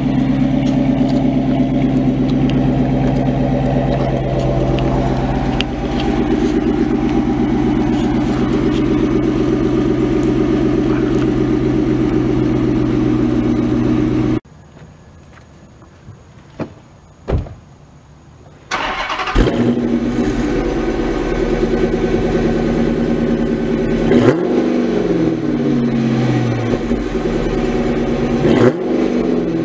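2012 Dodge Charger R/T's 5.7 Hemi V8 idling through an aftermarket exhaust. About halfway through, the engine sound drops away for about four seconds, leaving only a few knocks. Then the idle returns and the engine is revved twice, each rev rising in pitch and falling back to idle.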